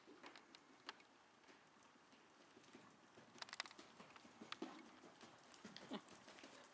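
Faint hoofbeats of a ridden horse on the sand footing of an indoor arena: soft, irregular thuds and clicks that grow denser and a little louder in the second half.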